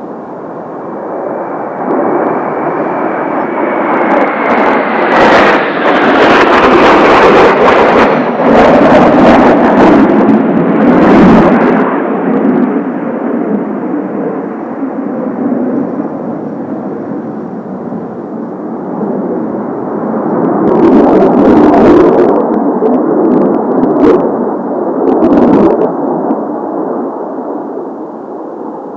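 Blue Impulse formation of Kawasaki T-4 jet trainers flying over. The jet roar swells to a peak, eases, then swells again about twenty seconds in. A falling engine whine comes near the start, and sharp crackles come at the loudest moments.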